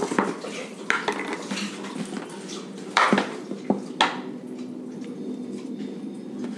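A few sharp knocks and clinks on a stainless steel bowl as atta flour is added to chopped fenugreek leaves, the loudest about three and four seconds in, over a steady low hum.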